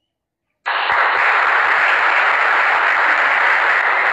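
Steady, dense applause that cuts in abruptly after about half a second of dead silence.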